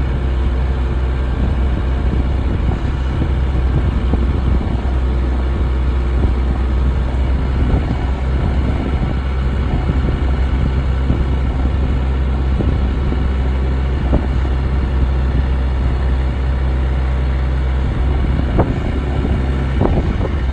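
Bobcat 331 mini excavator's diesel engine running at a steady, even speed, with a couple of short knocks near the end.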